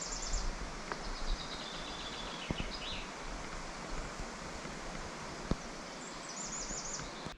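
Outdoor ambience: a steady rushing background noise, with a bird singing short, evenly repeated high trills a few times.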